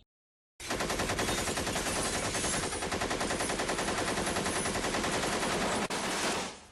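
Sustained rapid automatic gunfire: a long string of evenly spaced shots that starts abruptly about half a second in and runs nearly six seconds before fading out.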